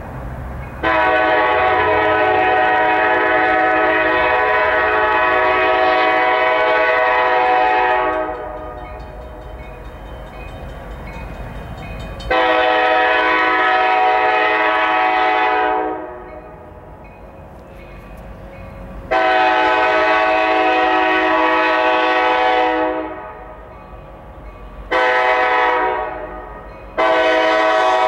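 Norfolk Southern freight locomotive's air horn blowing several notes at once in five blasts: three long, one short, then a long one that runs on. The last four follow the long-long-short-long pattern of a grade-crossing warning. A train's low rumble runs underneath and between the blasts.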